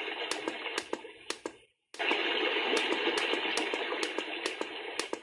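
Brook sleep sound, a recording of running water, playing from the Sharp alarm clock's speaker and getting quieter in steps as the volume is lowered, with quick clicks about three a second. It cuts out briefly about two seconds in, comes back loud and fades again.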